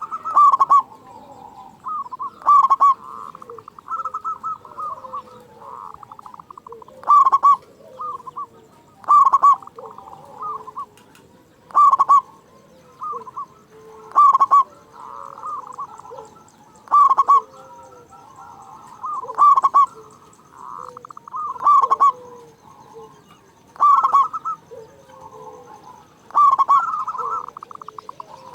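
Zebra dove (perkutut) cooing over and over: a loud burst of quick rolling coos comes about every two and a half seconds, with softer cooing in between.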